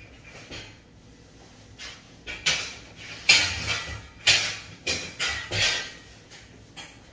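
Metal-framed linen trolleys clattering as they are wheeled and pushed into place, with a quiet start and then a run of sharp metallic knocks and rattles in the second half.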